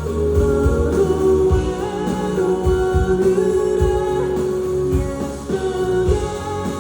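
Male singer singing a pop ballad live with band accompaniment, holding long notes.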